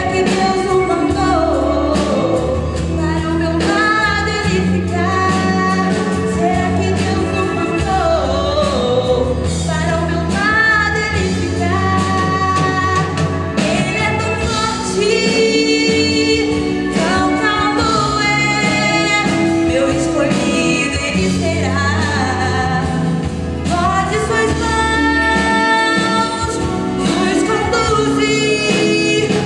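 A woman singing a song through a handheld microphone over instrumental accompaniment with sustained bass notes.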